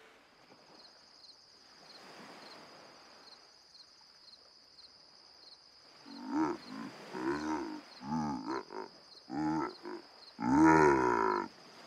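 Cartoon polar bear vocalizing in a run of short growling calls, then one longer, louder call near the end: the bear trying to say something. Under it, steady high insect chirping of a night scene.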